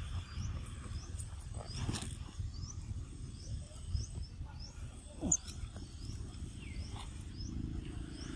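Long-tailed macaques feeding outdoors. Under a steady low rumble, a faint high chirp repeats about twice a second, and one short squeal with falling pitch stands out about five seconds in.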